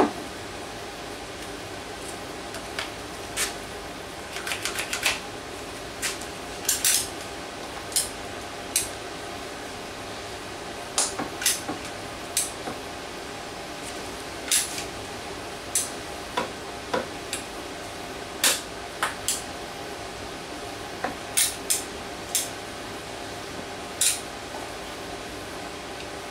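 Hand-squeezed caulk gun clicking sharply and metallically each time its trigger is pumped, singly or in quick runs of two to four, at irregular intervals while caulk is laid along a box's inside seams. A steady hum runs underneath.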